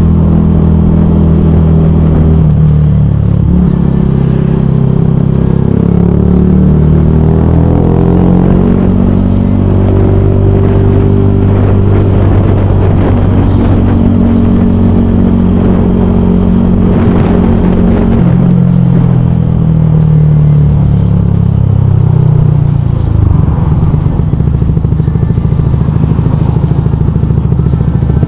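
Yamaha YZF R125's 125cc single-cylinder four-stroke engine running under way, its note rising and falling several times as the revs change.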